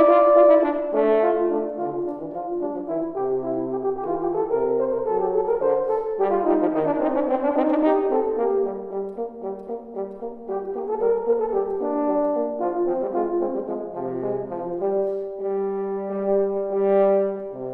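Two French horns playing a duet, a low part and a higher part moving together in changing notes. The playing swells to a dense, busy passage about six seconds in, dips quieter a few seconds later, and ends on longer held notes.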